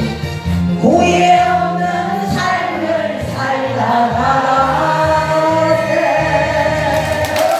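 Korean trot song accompaniment playing, with a held, wavering lead melody over a pulsing bass line.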